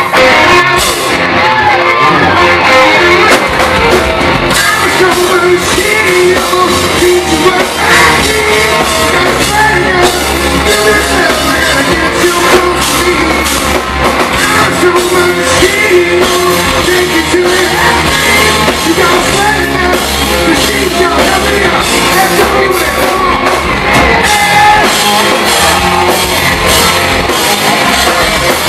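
Live hard rock band playing loudly, with distorted electric guitars, drum kit and a singer, heard as recorded from the crowd.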